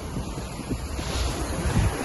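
Lake Ontario waves washing, with wind buffeting the microphone; a wave breaks with a brief hiss about a second in.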